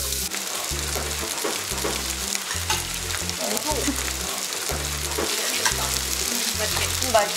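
Spicy hagfish (gomjangeo) and vegetables sizzling steadily on a foil-lined tabletop gas grill, with a background music beat underneath.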